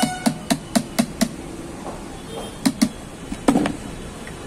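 Sharp clicks and knocks from the plastic housing and fan wheel of a car AC blower motor being handled and fitted together. There are about six quick clicks at around four a second at the start, two more a little before three seconds in, and one louder knock about three and a half seconds in.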